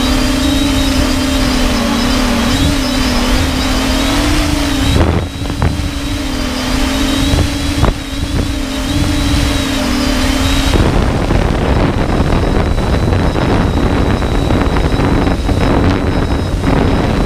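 3DR Solo quadcopter's propellers and motors humming steadily with a thin high whine, as heard from the drone itself. About eleven seconds in, the steady hum gives way to a rougher rushing noise while the high whine goes on.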